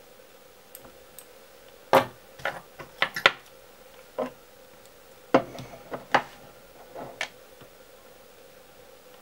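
Sharp clicks and taps of fly-tying tools, such as scissors, being handled and set down on the bench. They come in two clusters, about two seconds in and again about five seconds in, over a faint steady hum.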